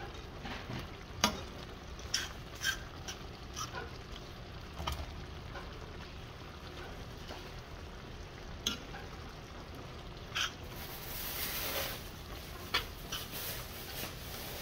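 A metal spoon and fork scraping and tapping in a pan of simmering coconut-milk sauce with vegetables, with scattered sharp clicks of metal on the pan. About eleven seconds in, a brief swell of hiss from the hot sauce.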